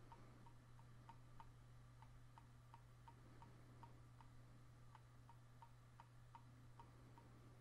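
Near silence with faint, quick ticks of a computer mouse scroll wheel, about three a second, over a low steady hum.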